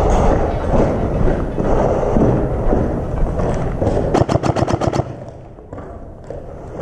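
Systema PTW electric airsoft rifle firing a rapid full-auto burst of about ten shots in under a second, about four seconds in. Before it comes a dense, loud clatter of noise, and after it only a few faint clicks.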